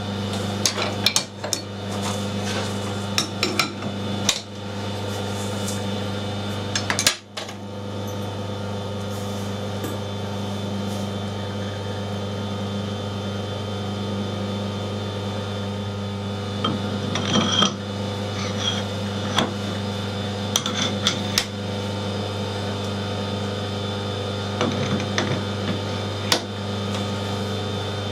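Steel parts being handled and fitted on a metal lathe's mandrel: scattered metal clanks and knocks over a steady low hum.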